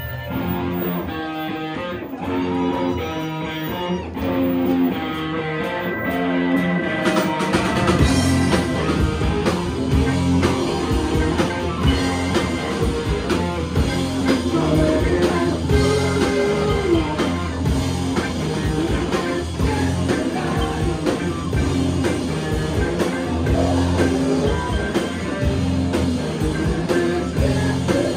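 Live rock and roll band playing: electric guitars, drum kit and saxophones, amplified through a club PA. The sound starts thinner and the full band comes in louder about seven seconds in.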